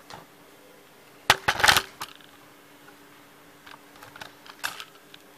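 Tabletop handling noises: a sharp click about a second in, then a brief loud rustling clatter, followed by a few light taps and rustles as a paper receipt is handled and pressed down on the table.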